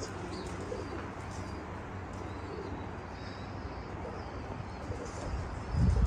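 Domestic pigeons cooing softly from the lofts over a steady background hiss, with a brief louder low rumble near the end.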